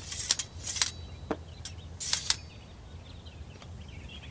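A few short swishes and rattles of swords and armour as armed soldiers move and shift position, with faint birdsong chirping behind.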